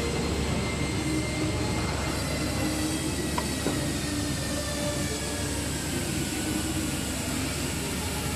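Powder-filling machinery running steadily, a continuous mechanical drone with faint steady whines over it. A light click about three and a half seconds in.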